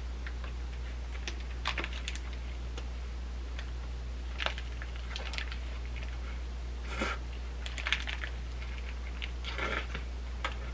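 Close-up eating sounds: a person biting and chewing a rice burger with a fried-egg patty, short crisp clicks and smacks scattered irregularly, with the paper wrapper rustling in her hands. A steady low hum sits under it all.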